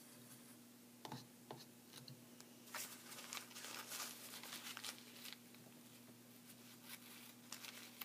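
Paper towel crinkling and rustling in the hand as a paintbrush is wiped clean in it, after a couple of light clicks about a second in. A steady low hum sits underneath.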